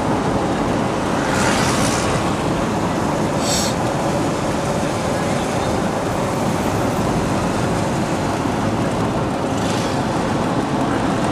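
Steady road and engine noise heard from inside a moving vehicle in city traffic, with a few brief hissing swells.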